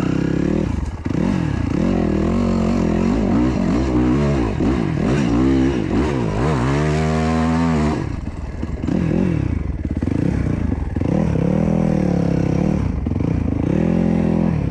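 Dirt bike engine heard from the rider's position, revving up and down repeatedly under throttle as it is ridden over rough ground. A long rise in revs comes about six to eight seconds in, then drops off sharply.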